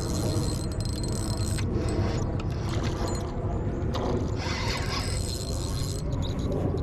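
Fishing reel being cranked to bring in a hooked catfish, its gears running with a mechanical clicking, against steady low rumble.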